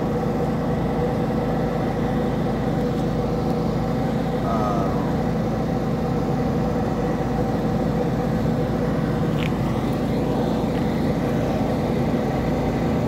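An engine running steadily: a constant drone with an even hum.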